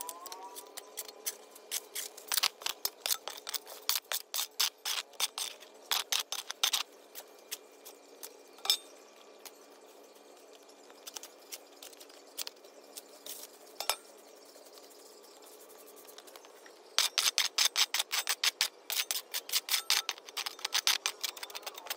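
A shovel and a stiff broom scraping and sweeping leaves and dirt across brick paving in quick scratchy strokes. The strokes come in a busy spell, thin out to occasional scrapes, then pick up fast again about three-quarters of the way through.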